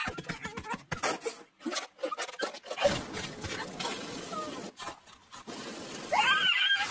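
Cartoon sound effects: a run of quick clicks and knocks with a rough scraping stretch in the middle, and short cartoon bird squawks, one longer call about six seconds in.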